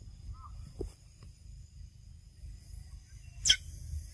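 A baby macaque gives one short, sharp shriek about three and a half seconds in, over a low rumble.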